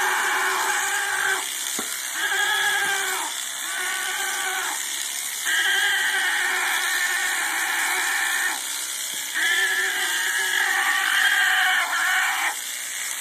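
Alpaca screaming in protest while held down for shearing: about five long, wavering, high-pitched cries, each one to three seconds long, with short breaks between.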